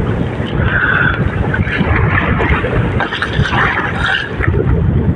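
Strong storm wind buffeting the microphone in irregular gusts, with rough sea waves sloshing and hissing around an outrigger fishing boat.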